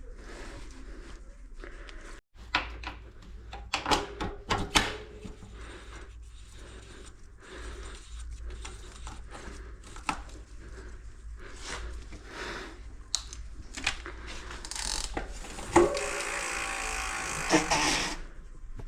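Mountain bike wheels being fitted back into the frame: scattered sharp metal clicks and knocks, then a steady ratcheting buzz for about two seconds near the end.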